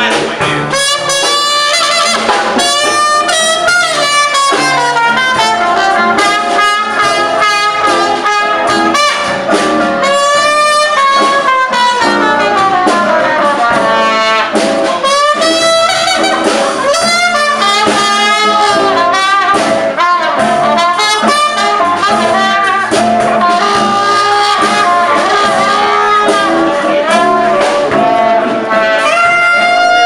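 Small jazz street band playing a lively tune: a trumpet and an alto saxophone carry the melody over a bass saxophone line, with drums keeping time.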